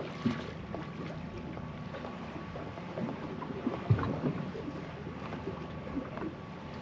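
Sounds of a boat at rest on open water: a steady wash of wind and water with a low, steady hum, and a couple of light knocks, one just after the start and one about four seconds in.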